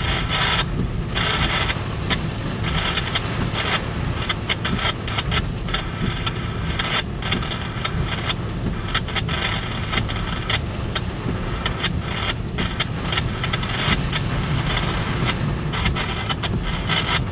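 Heavy rain pelting a car's roof and windshield, heard from inside the car, over the low rumble of a passing CSX double-stack intermodal freight train. The noise is steady and dense.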